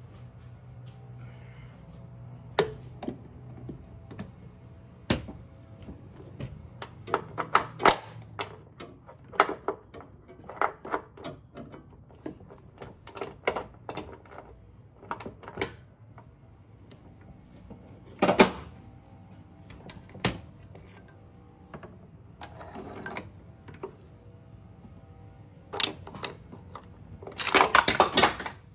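Hand wrench working a control-arm mounting bolt loose: irregular metallic clicks and clanks of the tool on the bolt and bracket, with a quick run of clicks near the end.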